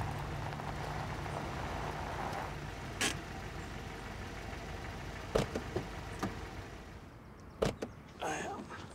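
A car engine running low and steady as the car pulls up, fading after a couple of seconds. A few sharp clicks follow, and near the end a car door is opened.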